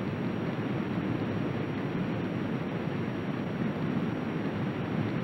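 Steady low rushing water noise of an underwater ambience, even throughout with no distinct events.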